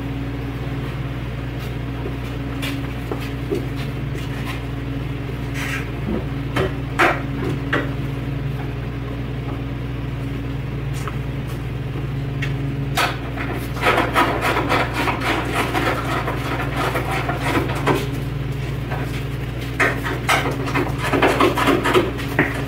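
Hand tools clicking and knocking on metal as the cowl hood's bolts are tightened, over a steady low hum. The clicking and rattling gets busier about thirteen seconds in and again near the end.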